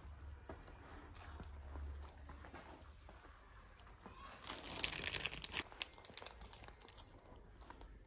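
Crinkling and rustling with scattered small clicks, swelling into a louder crinkly burst for about a second from four and a half seconds in, over a steady low rumble.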